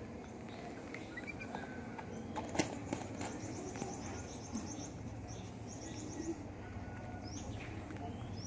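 Faint high bird chirps and quick trills over a quiet background, with short rising chirps near the end and a couple of light clicks about two and a half seconds in.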